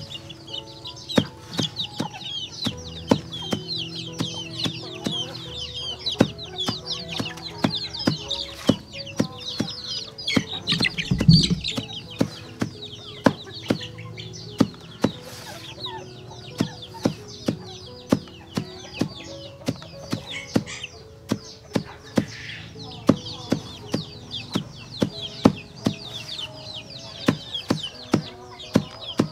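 Chickens peeping and clucking, with a dense chatter of short high chirps throughout. Sharp taps come every second or so, and there is a single heavier low thump about 11 seconds in.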